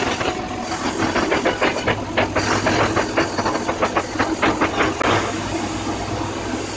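Shielded metal arc (stick) welding: the electrode's arc sizzling steadily with a fast, irregular crackle of pops, settling to a smoother hiss about five seconds in.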